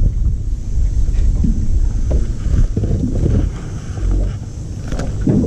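Wind buffeting the camera's microphone: a steady low rumble, with faint voices in the background.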